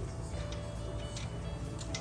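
Background music with light ticking percussion.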